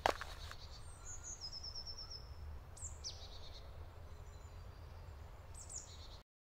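Forest ambience with small birds calling in short, high phrases, over a low steady rumble; a single knock right at the start. The sound cuts off suddenly about six seconds in.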